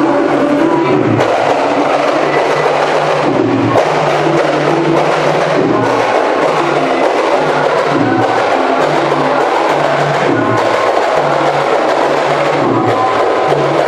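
Music with hand percussion and a low bass line and no singing, an instrumental passage of a devotional wedding song.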